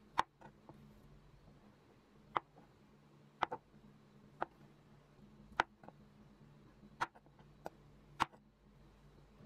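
Chef's knife cutting feta cheese into cubes, the blade knocking sharply on a plastic cutting board at irregular intervals, about a dozen times, over a faint steady hum.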